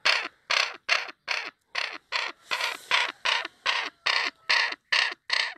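Young crow's harsh begging calls, repeated about three times a second, with its red-lined beak gaping wide for food.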